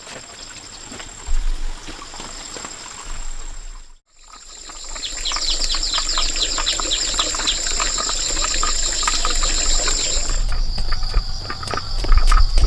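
Jungle insects calling: a steady high-pitched whine with a rapid chirping trill over it for about five seconds. The sound cuts out briefly about four seconds in. A loud low rumble comes in near the end.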